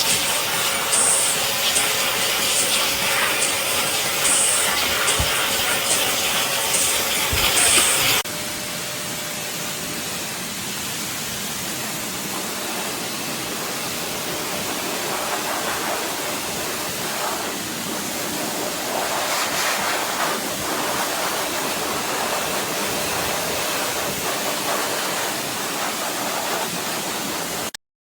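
High-velocity pet dryer blowing, a steady rush of air with a faint motor whine. About eight seconds in it drops to a quieter, softer rush, and it stops suddenly near the end.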